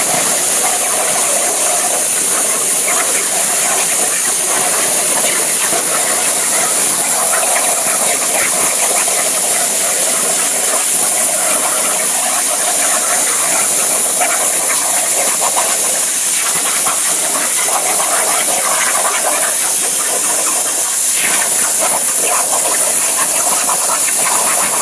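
CNC plasma cutter torch hissing steadily as its arc cuts through metal.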